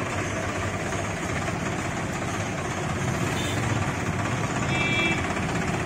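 Swaraj 963 FE tractor's diesel engine idling steadily.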